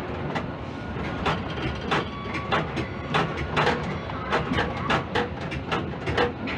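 Quay crane machinery running, heard from inside the operator's cab: a steady rumble with irregular clicks and knocks, two or three a second, as the spreader holds a container.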